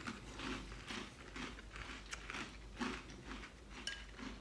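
Someone chewing a mouthful of crunchy Nutri-Grain cereal in milk: a steady run of short, crisp crunches, about three a second.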